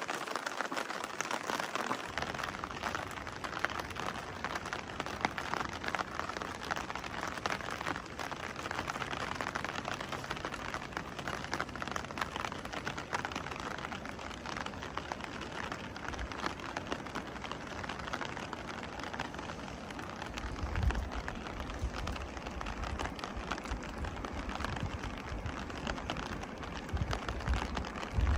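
Steady rain falling, dense fine drops hitting the ground and surfaces. From about two-thirds of the way in, a low rumble joins it.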